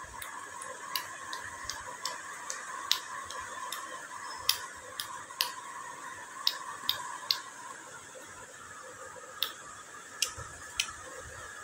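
A string of short, sharp clicks, about two or three a second at first, thinning out to a few isolated ones in the second half, over a faint steady background tone.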